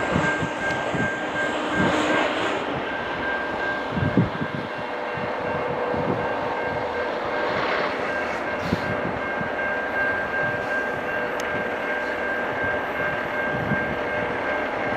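Alco RS11 diesel locomotive with its V12 Alco 251 engine, working as it approaches at low speed, running steadily with a thin, steady high whine over its engine noise.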